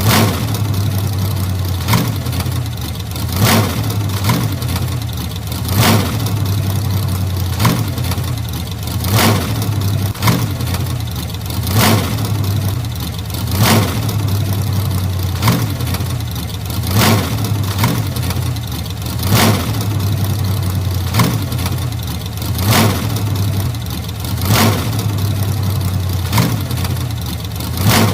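Old car engine running with a steady low hum, punctuated by short, sharp sounds every one and a half to two seconds.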